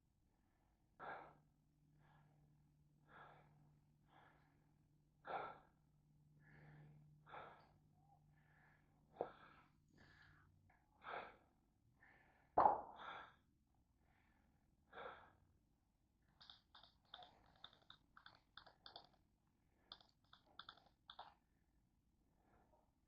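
Faint, quick breaths of a person breathing hard, about one a second. Near the end comes a rapid run of short faint clicks.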